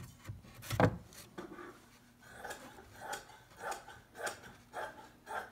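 A single sharp wooden knock about a second in, as the pine lid of a wooden pigeon feeder is handled on its seat. This is followed by soft, evenly spaced knocks and shuffles about twice a second.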